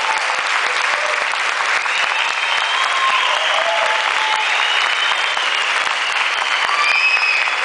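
Concert audience applauding and cheering after a song ends, with whistles and shouts rising over the steady clapping.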